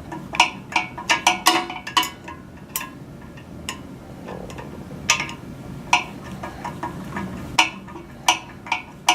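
Irregular small clicks and taps of hard plastic and metal antenna parts being handled and fitted together, several in quick succession at first and then about one a second.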